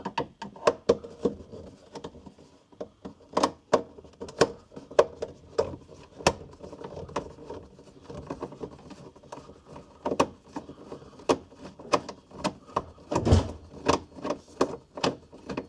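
Screwdriver working the screws out of a plastic consumer unit (fuse board) cover: a long run of irregular small clicks and scrapes, with a heavier knock about thirteen seconds in.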